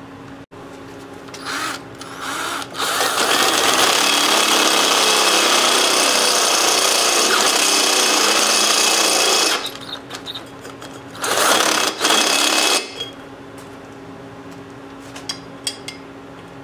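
Electric drill with a Greenlee step drill bit boring a hole through the metal of a Briggs & Stratton engine block. It gives two short bursts, then a steady run of about seven seconds, then another short burst.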